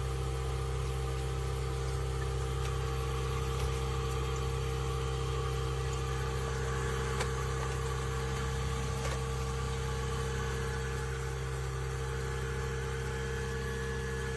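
Reptile fogger running close up: a steady electric motor and fan hum with fixed tones, unchanging throughout.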